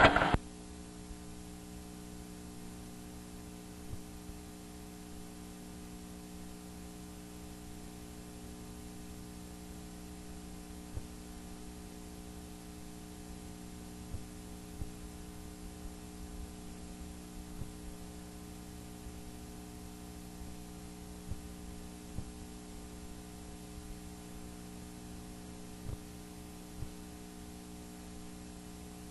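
Steady electrical hum made of several fixed tones, with a few faint clicks scattered through it.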